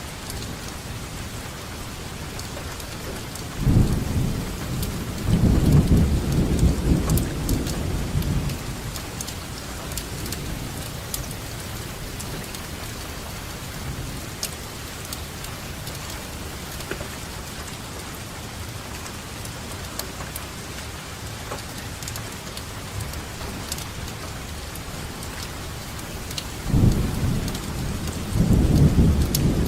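Steady rainfall with scattered drop ticks, and rolling thunder rumbling low twice: once a few seconds in for about five seconds, and again near the end.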